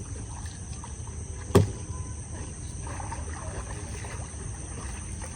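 A small homemade foam boat being paddled, with water noise and a single sharp knock about one and a half seconds in. A steady high chirring of crickets runs underneath.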